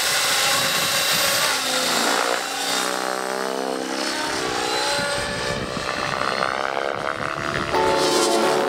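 Radio-controlled model helicopter taking off and flying fast overhead. Its rotor and motor whine slides down and up in pitch as it climbs, turns and passes, over a steady rush of air from the rotor blades.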